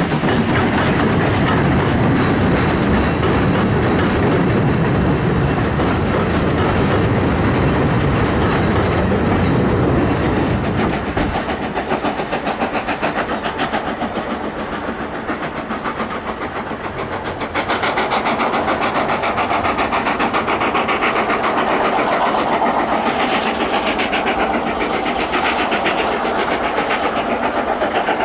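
Taff Vale Railway 85, an 0-6-2 steam tank engine, working hard up a steep bank: a fast, steady beat of exhaust with the coaches rolling over the rails behind. It is loudest and deepest as it passes in the first ten seconds or so, then eases as the train draws away.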